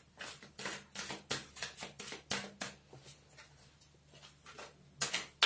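Tarot cards being handled and laid out: a string of short, irregular card taps and flicks, louder near the end.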